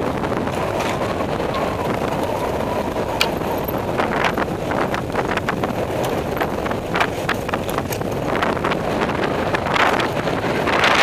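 Wind buffeting a helmet-mounted camera's microphone and tyre noise from a mountain bike descending a dirt trail at speed, with frequent sharp rattles and clacks from the bike over bumps that grow busier in the last couple of seconds.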